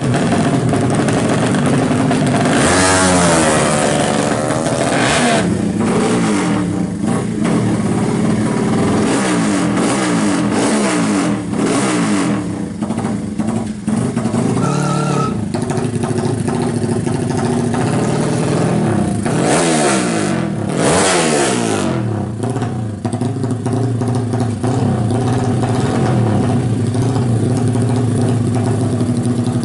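200cc Honda-engined drag bikes being revved hard. The engine pitch sweeps up and down in quick revs a few seconds in and again about two-thirds of the way through, with steadier running in between.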